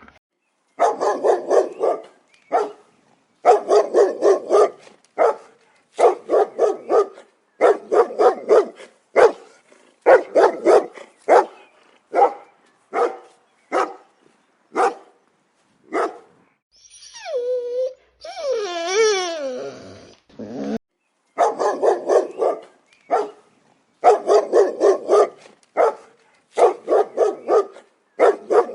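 A dog barking in quick volleys of several barks each, with silent gaps between them. About seventeen seconds in, the barking gives way to a drawn-out call that wavers up and down in pitch, then the volleys resume.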